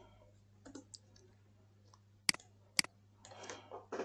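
Two sharp computer mouse clicks about half a second apart.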